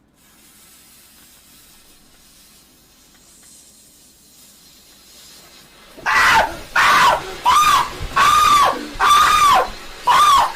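A lit firework fuse hissing faintly for about six seconds, then a man screaming loudly and high-pitched, about six screams in a row, each rising and falling.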